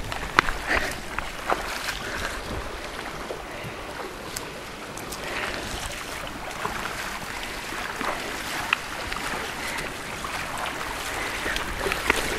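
River water rushing along a street in a steady, continuous wash, with a few small clicks scattered through it.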